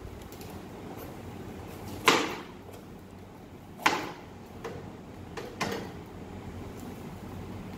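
Chef's knife cutting through a red bell pepper and knocking on a plastic cutting board: three sharp knocks spaced roughly two seconds apart, with a couple of lighter taps between them.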